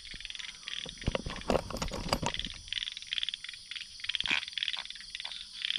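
A chorus of frogs calling, many short pulsed croaks repeating and overlapping over a steady high hiss, with a few sharp clicks in the first half.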